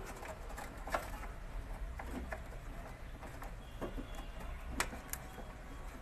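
Faint scattered clicks and scrapes of hands working plastic wire connectors loose from a window air conditioner's control board, with a sharper click about a second in and two more near the end.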